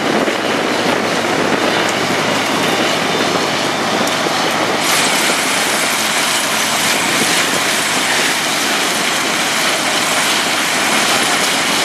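Sugarcane tramway train (cane train) running, its wagons rattling along the narrow-gauge track in a steady, loud noise that turns brighter and hissier about five seconds in.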